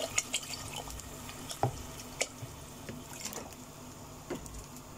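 Water poured from a plastic bottle into a pot of fried mutton masala, splashing and dripping, with a few light separate clicks and drips as the pour ends.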